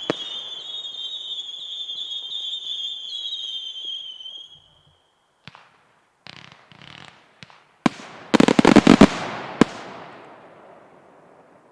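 Fireworks display: shrill whistling effects for about four seconds, then several sharp bangs and a quick volley of loud cracks a little past the middle, echoing away.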